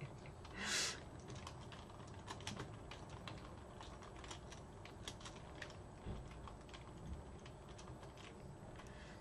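Computer keyboard typing: faint, quick key clicks in irregular runs, with a short hiss about a second in.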